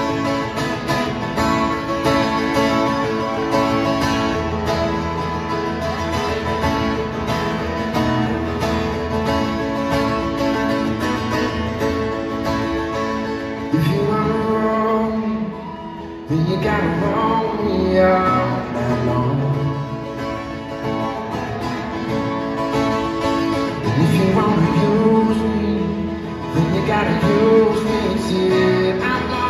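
Solo acoustic guitar played live, a picked intro, heard over an arena PA from the stands. From about halfway in, a man's voice sings over it.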